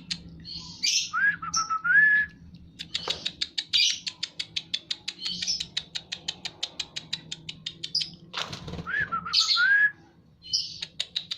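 White-rumped shama in breeding condition calling: a fast run of sharp ticks, about five a second, broken twice by a short whistled phrase that dips and then rises.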